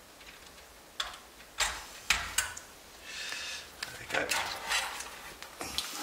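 Irregular clicks and knocks of parts being handled inside an amplifier's metal chassis, over a low handling rumble.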